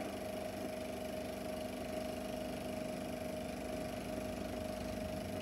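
Super 8 sound projector running with a steady hum and a fixed mid-pitched whine while the film's soundtrack drops out, one of the worn print's sound dropouts.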